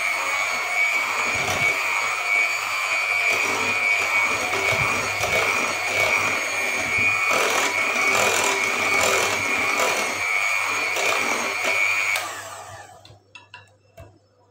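Electric hand mixer running at steady speed with its beaters churning cake batter in a bowl, a steady motor whine. It switches off about two seconds before the end and winds down.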